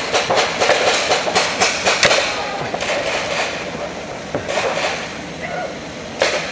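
Paintball markers firing reballs in quick, irregular shots, several a second for the first couple of seconds, then sparser, with a loud cluster of shots near the end.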